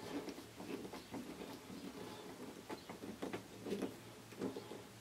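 Hand screwdriver driving a screw through a small plastic bullet holder into the shower track, with faint, irregular small scrapes and clicks as the screw turns.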